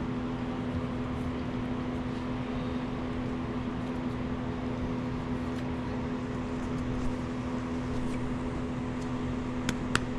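Steady machine hum with a low, even drone, and a few light clicks near the end.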